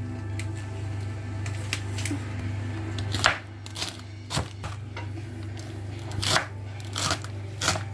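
Kitchen knife chopping spinach leaves on a wooden chopping board: a handful of irregular knife knocks on the board, the loudest about three seconds in, over a steady low hum.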